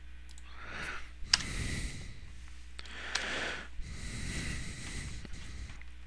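A man breathing close to the microphone: a few slow breaths, each a soft swell of hiss about a second long, with a single sharp click about a second and a half in.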